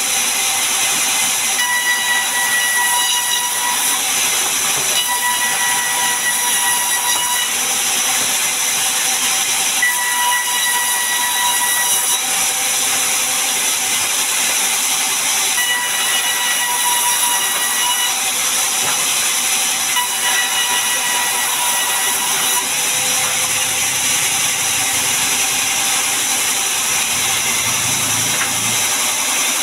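Large vertical bandsaw mill running with a steady loud hiss as it rips mahogany boards lengthwise. A whine comes and goes five times, two to three seconds each.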